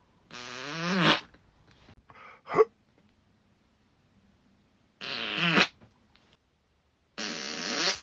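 A person farting several times. A long pitched fart wavers in pitch and grows louder, two short ones follow about two seconds in, and two more long pitched ones come about five and seven seconds in.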